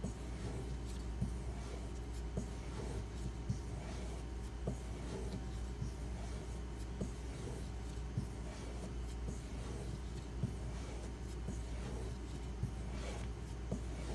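Knife blade being stropped on a leather paddle strop loaded with white compound: continuous soft rubbing strokes with a light tick about once a second, over a low steady hum.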